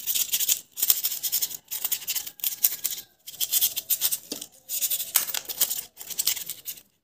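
Snap-off utility knife blade sawing through thermocol (expanded polystyrene foam) in repeated scratchy, high-pitched strokes, about eight in a row with brief pauses between them.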